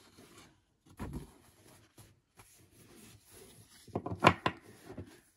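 Large glossy postcards being handled and shuffled: soft rustling and sliding of card stock, then a quick run of sharp snaps and taps of the card edges about four seconds in.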